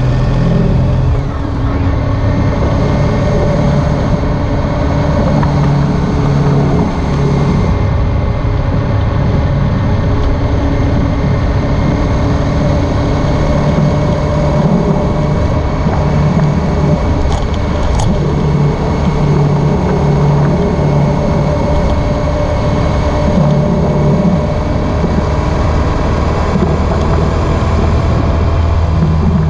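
Honda ST1300 Pan European motorcycle on the move, its V4 engine running steadily under a constant rush of road noise. The engine pitch drifts slowly up and down.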